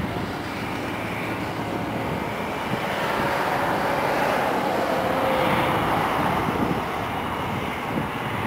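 Airbus A320 airliner's jet engines running at taxi power as it taxis: a steady rush that grows a little louder midway, with a faint whine in it.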